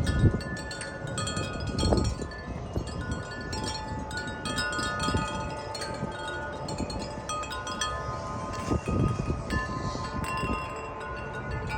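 Wind chimes ringing in the wind: the clapper strikes the tubes at irregular times, leaving several pitches ringing on and overlapping. A low rumble of wind gusts runs underneath.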